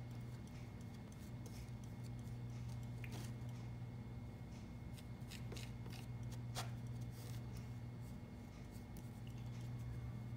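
Thin metal spatula scraping and rubbing linseed oil into a powder on a clear plate, a quiet run of irregular scratching strokes as the oil is worked into a putty. A steady low hum runs underneath.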